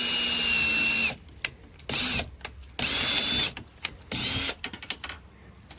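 Power drill driving a mounting screw: it runs steadily and stops about a second in, then three short trigger bursts follow as the screw is snugged down.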